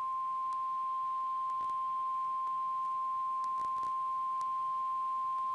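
Emergency Alert System attention signal: one long, steady electronic tone just above 1 kHz, the 1050 Hz National Weather Service warning tone, here leading into a flash flood warning.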